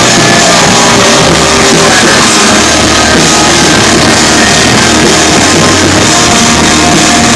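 A rock band playing loud, with guitars and drums.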